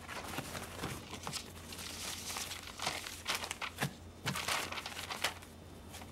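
Rustling and crinkling of something being handled, in irregular strokes with a few small knocks between them.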